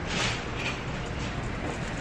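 Steady low rumble and hiss of background noise while walking into a shop entrance, with a short brighter hiss right at the start.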